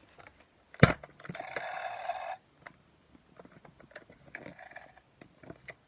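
A sharp click, then a buzzing, scraping sound about a second long from a kids' toy being handled, followed by small clicks and a fainter short buzz.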